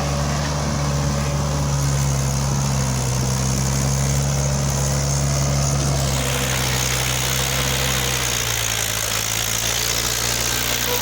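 Heavy diesel engine running steadily at a low, idle-like speed, its tone shifting slightly about six seconds in.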